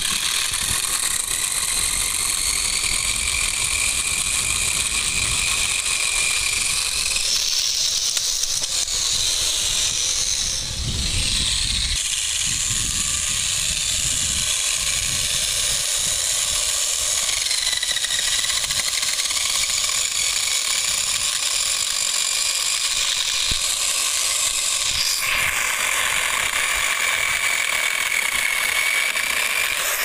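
Corded electric chainsaw running continuously while cutting through the upper branches of a tree. Its steady high whine shifts pitch several times as the chain loads up in the wood and frees again.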